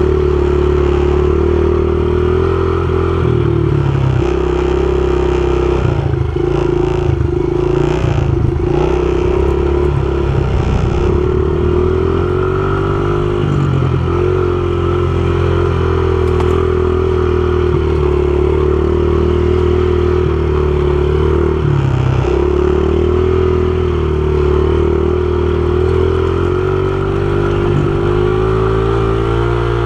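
Small dirt bike engine running at low, fairly steady revs, heard close up. The revs dip and waver a few times with throttle changes and rise slightly near the end.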